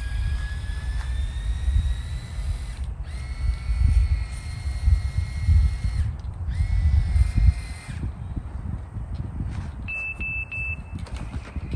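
A small motor whining steadily over a low rumble, its pitch creeping up, cutting out briefly twice. Then three quick, short high beeps about ten seconds in.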